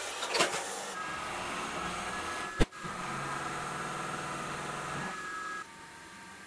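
Machine-shop cutting of aluminium stock: a bandsaw cut ends with a short clatter as the offcut drops, then a milling machine's spindle runs with a steady whine as the cutter works the block, with one sharp knock partway through. The running sound drops to a quieter level near the end.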